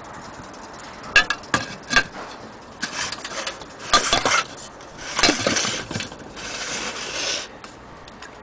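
Hard objects being handled: three sharp clicks or clinks about a second in, then several longer rubbing, scraping passes.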